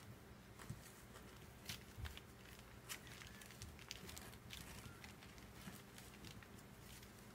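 Faint, scattered soft taps and rustles of four-week-old kittens' paws scampering over a towel as they play, over a faint steady hum.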